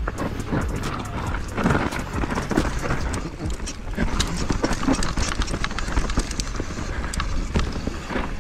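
Downhill mountain bike descending a rocky trail: a constant clatter of knocks and rattles from tyres, chain and suspension hitting rocks, over a low rumble.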